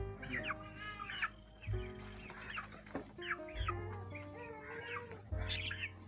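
Domestic hens clucking in short, repeated calls, over background music with held notes and a low bass. There is one sharp tap near the end.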